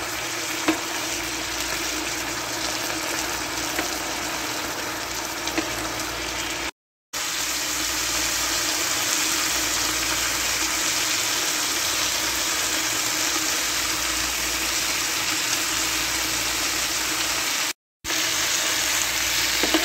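Diced chicken breast sizzling and simmering in a pan of tomato and turmeric gravy: a steady hiss with a low hum underneath. The sound cuts out briefly twice, about seven seconds in and near the end.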